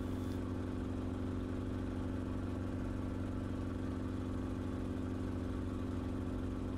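Enstrom helicopter in flight: the steady, even drone of its engine and rotors, heard from the cockpit.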